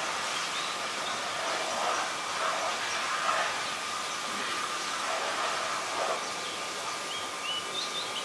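Outdoor ambience: a steady hiss with a faint constant tone and some muffled mid-pitched noise, with a few short, high bird chirps near the end.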